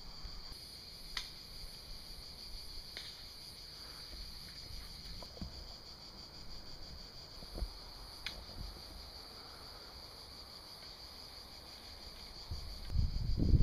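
Steady high-pitched chorus of insects, with a higher buzzing layer that starts and stops twice. A few faint clicks, and a loud low rumble near the end.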